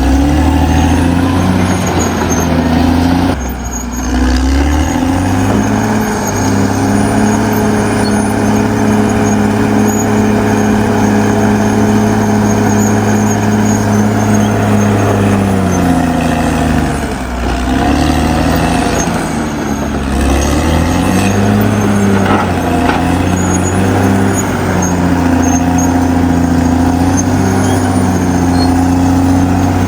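Caterpillar D6R XL bulldozer's diesel engine working under load, its pitch rising a few seconds in and holding high, dropping briefly past the middle, then climbing back up and holding.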